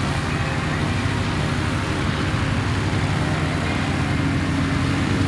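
Diamond DA40 Diamond Star's single piston engine and propeller running steadily at low taxi power, a little louder near the end.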